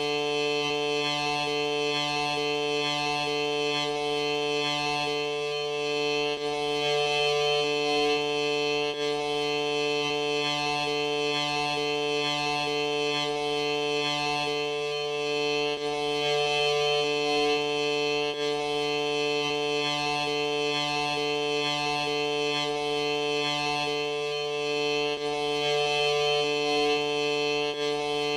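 A sneeze slowed and stretched into a long, steady droning tone of several held pitches, sounding like a sustained organ or bagpipe chord. Small breaks and wobbles recur about every nine to ten seconds, as if looped.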